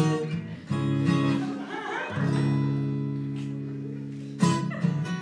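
Acoustic guitar strumming chords in an instrumental break: a chord struck about a second in, another struck around two seconds in and left ringing for about two seconds, then strumming picks up again near the end.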